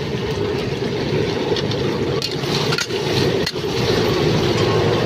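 Steady roar of a gas cooking burner under a wok, with a low hum and a few sharp clicks scattered through.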